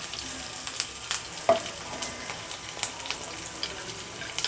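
Chopped onions, green chillies, ginger and garlic sizzling in hot oil in a pan, with a spatula clicking and scraping against the pan as they are stirred.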